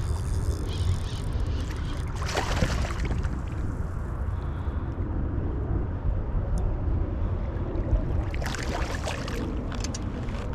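Steady low rumble of river current and wind on the microphone, with two bursts of water splashing: one about two seconds in, the other near nine seconds.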